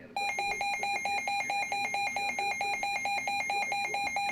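Weather alert radio sounding its warning alarm: a rapid, evenly pulsing electronic beep, several beeps a second at one fixed pitch. It starts just after the programme audio cuts off and signals that a severe thunderstorm warning has come in.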